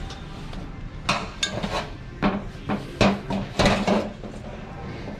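Hard objects clattering and knocking: about ten sharp hits in a few seconds, as when items are picked up and set down.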